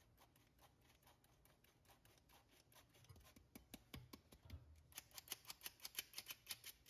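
Faint, rapid clicking of a squeeze-handle stainless-steel flour sifter being worked over and over as flour is sifted into a bowl of batter, several clicks a second, louder from about five seconds in.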